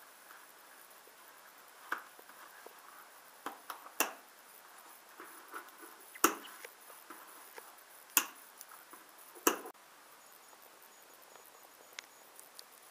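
Scissors snipping through the string tied around a cardboard parcel: a series of sharp snips a second or two apart, the loudest four, which stop about ten seconds in.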